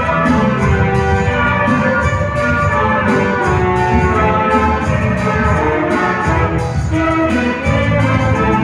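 Chamber orchestra playing an instrumental arrangement, held melody notes over a full, steady accompaniment.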